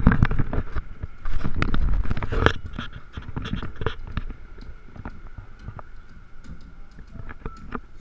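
Water from the Bellagio fountain's tall jets falling back onto the lake: a heavy rushing splash with a low rumble and many small crackles. It is loudest in the first two and a half seconds and then dies down to a softer hiss of falling spray.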